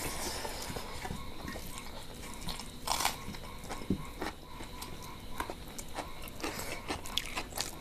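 Close-up eating sounds of rice and chicken curry eaten by hand: chewing and wet mouth smacks, with fingers mixing rice into the curry. Irregular soft clicks and smacks, the loudest about three seconds in.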